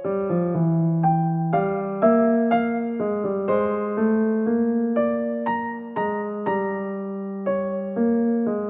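Background music: a slow, gentle electric piano melody, notes struck about twice a second and left to fade.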